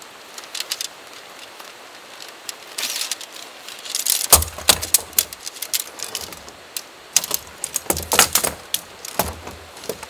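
Tent pole sections being unfolded and joined: a brief rustle, then a long run of sharp clicks and clacks as the sections knock and snap together, with a few heavier knocks, busiest in the second half.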